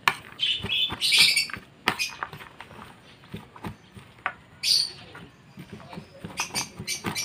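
A metal spoon clicking and scraping against a plastic tray as chopped vegetables and boiled egg are stirred, with caged pet birds giving short squawks and chirps now and then; the owner says the birds are calling because they are hungry.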